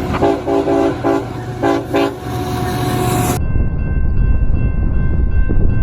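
Diesel freight locomotive's air horn sounding a horn show: five short blasts, three quick then two, with a fainter held note until about three and a half seconds in. Then an abrupt change to a train's steady low rumble with a thin, steady high ring.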